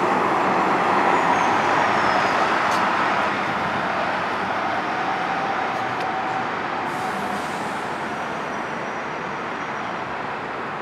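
Nova Bus LFS city bus driving past close by and pulling away, its engine and tyre noise loudest at first and slowly fading as it goes off down the street.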